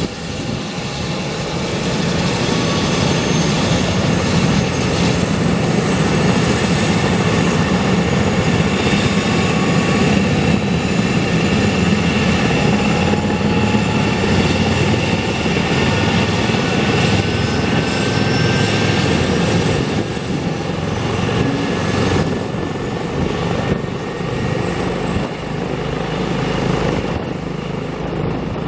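Airbus H145M helicopter's twin turboshaft engines and rotors running on the ground, a steady mechanical noise with a thin turbine whine that slowly rises in pitch. The level eases slightly in the last few seconds.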